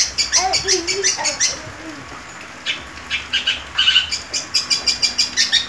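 Long-tailed shrike singing a rapid string of short, sharp, high notes, about six a second, with a pause of about a second partway through. Lower whistled glides sound under it in the first second and a half.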